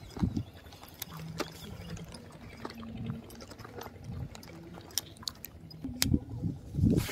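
Footsteps and brushing through grass on a dirt bank, with small clicks from handling a baitcasting rod and reel. Near the end comes a louder whoosh as the rod is swung to cast.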